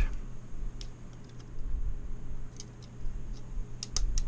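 Small sharp clicks and snaps of hand cutters clipping 3D-printed plastic support material off a model part: a few scattered snips, then several in quick succession near the end.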